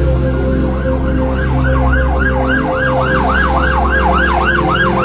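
Emergency vehicle siren in a fast yelp, its pitch rising and falling about four times a second and fading in over the first second or so. A low steady drone sounds underneath.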